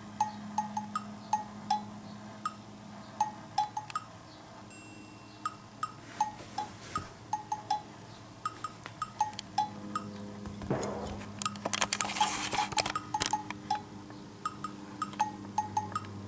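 Light background music of short plinking, chime-like percussion notes repeating in a bouncy pattern, with a brief rustling noise about ten to thirteen seconds in.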